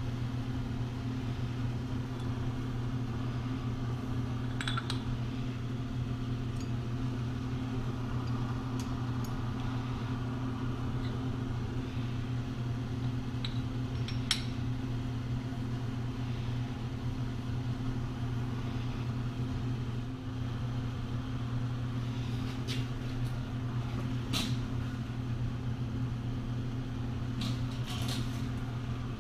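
Steady low machine hum, with a few light clicks and taps of a metal plate and clamp being set up on a granite surface plate: one about 5 seconds in, one near the middle, and a cluster near the end as the clamp goes on.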